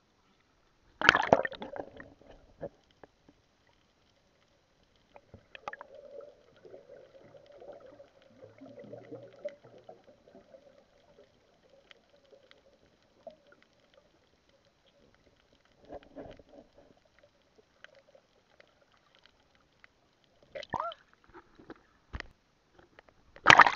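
Water sounds from a freediver's dive heard through an action camera: a loud splash about a second in as he goes under, then muffled underwater sloshing and gurgling with a faint steady hum, and another loud splash near the end as he comes back up.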